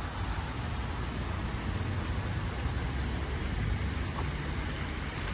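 Steady city street noise: traffic running on wet roads, with a constant low rumble underneath.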